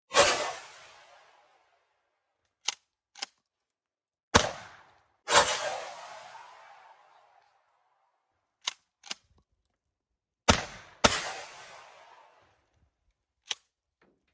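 12-gauge Stevens 320 pump shotgun firing 3-inch 00 buckshot: loud blasts with a long decay, coming in pairs about a second apart, and the pump action racked with two quick clacks between them, then a single clack near the end.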